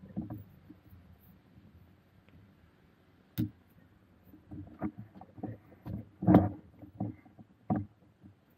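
Hard printed parts of a painted 3D-printed figure being handled: a string of short clicks and knocks as pieces are taken off and fitted back onto the model, the loudest a little past six seconds in.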